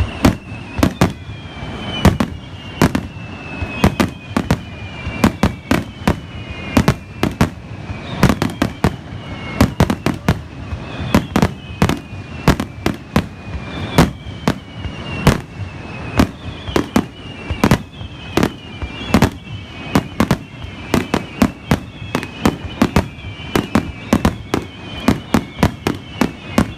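Aerial fireworks in a finale barrage: a rapid, continuous string of loud bangs, several a second. High whistles slide downward in pitch over the bangs again and again.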